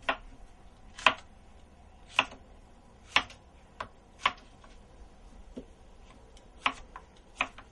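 Kitchen knife dicing zucchini and yellow squash, the blade knocking on the cutting board in single sharp chops about once a second, unevenly spaced.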